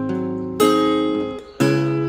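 Acoustic guitar strumming chords, about one strum a second, each chord ringing out and fading before the next.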